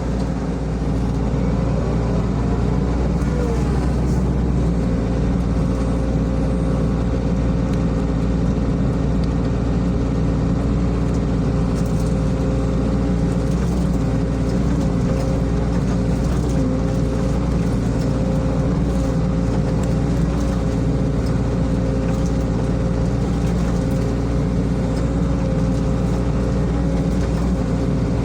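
SANY SY55C mini excavator's diesel engine running steadily while working, with a steady pitched tone over the low engine drone.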